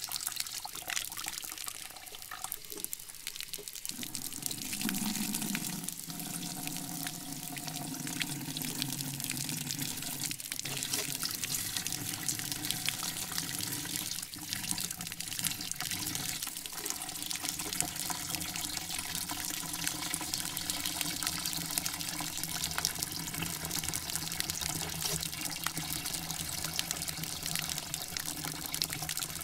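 Shower running: a steady hiss of water spraying and splashing.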